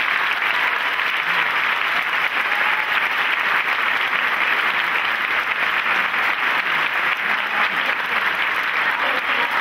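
Audience applauding after a speech ends: dense, steady clapping.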